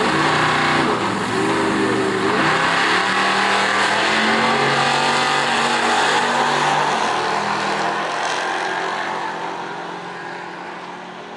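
2015 Ford Mustang GT's 5.0 V8 accelerating hard, its pitch climbing and dropping back at several gear changes, then fading over the last few seconds.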